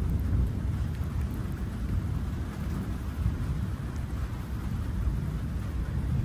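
Thunder rumbling low and continuously through a steady rain, with no sharp crack.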